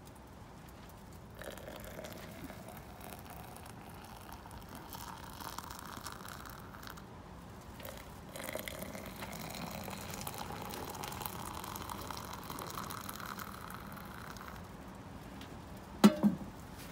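Hot coffee being poured from a metal camping pot into two stainless steel insulated tumblers, one after the other. Each pour lasts about six seconds, and its pitch rises as the tumbler fills. A sharp double knock of metal near the end.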